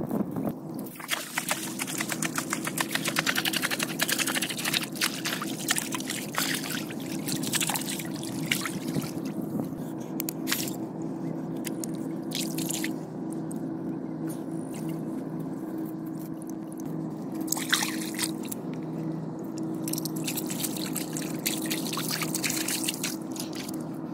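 Water dripping and trickling off a wet steel chain, with the chain's links clinking as it is handled, over a steady low hum.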